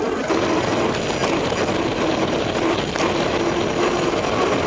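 Steady rush of wind on the bike-mounted camera's microphone, mixed with the hum of knobby mountain-bike tyres rolling fast on tarmac.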